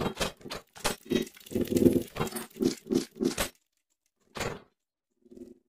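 Sound effects of an animated gear logo: a rapid run of mechanical clicks and clanks as the gears spin and lock together, then a single brief swish and a small low hit near the end.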